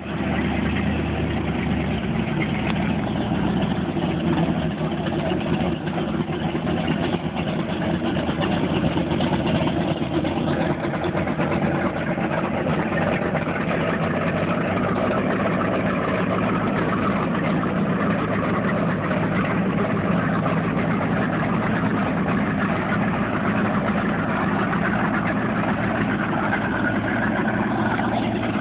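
Cigarette Cafe Racer speedboat's engines running steadily at low, idling speed.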